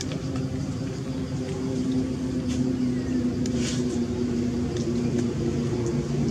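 A motor engine running steadily with a low, even hum. A few faint, brief high ticks come through about two and a half and three and a half seconds in.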